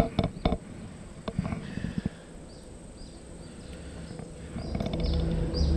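Small clicks and rustles of hands working a fishing hook and live shrimp bait over faint river-bank ambience. About four and a half seconds in, the low, steady hum of a boat engine rises.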